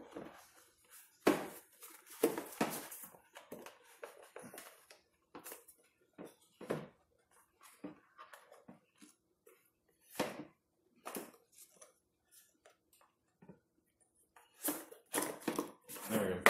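Hard plastic parts of a toddler booster seat knocking and clicking as they are handled, with its harness buckle and straps rattling. Scattered short knocks, coming thicker and louder near the end.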